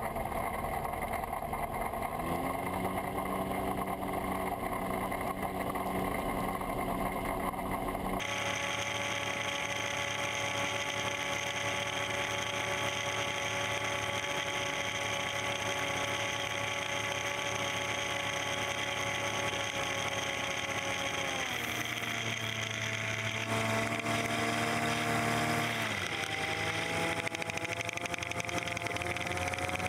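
Rotax 912UL flat-four engine and propeller of a Kolb Mark III ultralight running steadily in flight. The engine note drops twice, about two-thirds of the way in and again a few seconds later, then slowly climbs again near the end.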